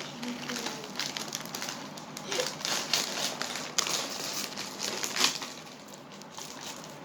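Plastic crisp packets crinkling and rustling as they are handled and opened. There are irregular crackly bursts, busiest in the middle and fading near the end.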